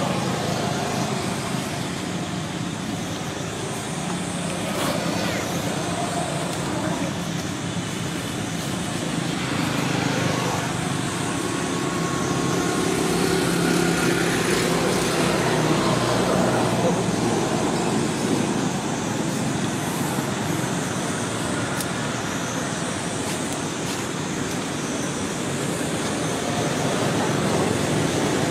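Steady road-traffic noise with a low engine hum, swelling a little partway through and again near the end.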